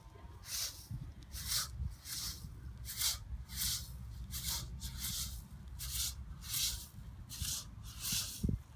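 Short hissing swishes repeating in a steady rhythm, about three every two seconds, in time with repeated golf-style rotational swings of a weighted ball, over a steady low rumble.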